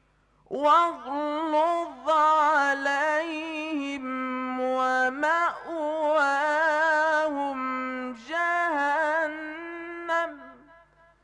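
A young man's voice in melodic Quran recitation: long, ornamented phrases held on wavering pitches, with a few short breaks between phrases.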